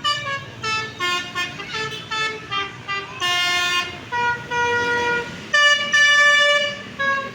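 Basuri bus's telolet multi-tone musical horn playing a tune: a quick run of short notes, then three longer held notes in the second half, with engine rumble beneath.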